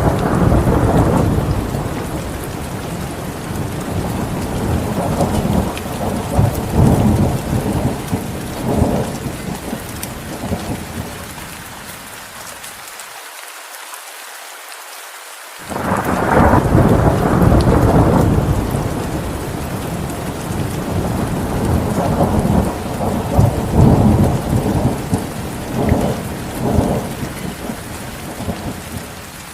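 Thunderstorm: steady rain hissing throughout, with two long rolls of thunder. The first is already rumbling at the start and dies away by about twelve seconds in; the second breaks suddenly about sixteen seconds in and rolls on, swelling several times, until near the end.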